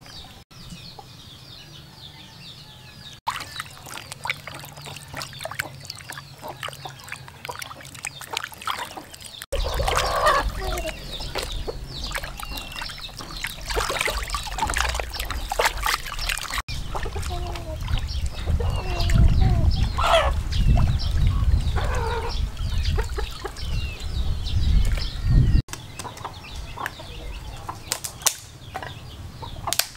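Raw pork being washed by hand in a plastic basin of water: splashing, sloshing and dripping, loudest in the middle stretch. Farm fowl call on and off throughout.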